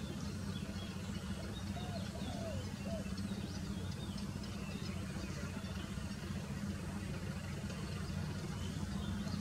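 Steady low hum of a running engine, with faint high bird chirps over it.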